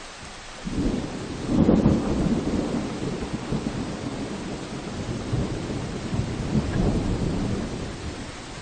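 A roll of thunder breaks out suddenly about a second in over steady rain. It peaks soon after and rumbles on for several seconds, easing off near the end.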